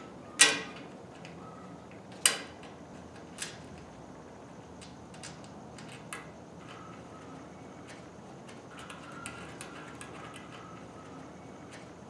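Sharp metallic clicks and taps as a cloth-braided wiring harness is pressed into metal retaining clips on a 1943 Willys MB's sheet-metal body. Two loud clicks come in the first two and a half seconds and a smaller one about a second later, then scattered light ticks.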